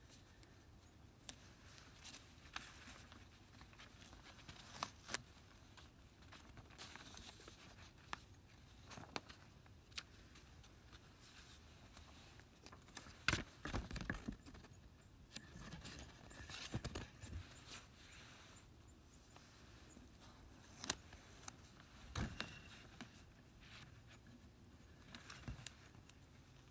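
Quiet background with scattered faint taps, knocks and rustles of a phone being handled close to its microphone, the loudest cluster about halfway through as the phone is turned around.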